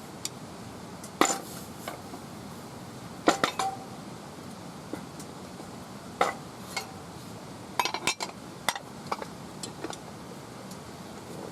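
Utensils clinking against metal cookware in irregular single strikes and quick clusters, several leaving a short ringing tone.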